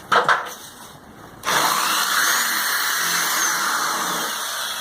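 A couple of sharp knocks near the start. About a second and a half in, an electric drill starts and runs steadily, drilling a pop-rivet hole through a steel mending plate into the wheelbarrow's metal bed.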